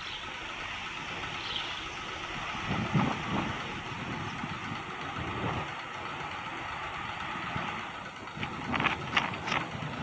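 Steady rushing wind noise on a nest camera's microphone in a snowstorm, with a few dull knocks about three seconds in and a cluster of short sharp sounds near the end.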